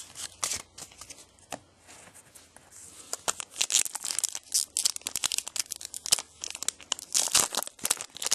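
Light rustling and clicks of cards being handled, then from about three seconds in a trading card pack's wrapper being torn open and crinkled in quick, loud bursts.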